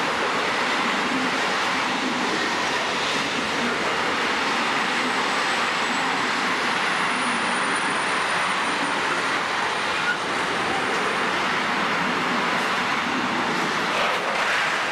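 Freight train of tank wagons passing close by at speed: a steady noise of the wagons' wheels running on the rails.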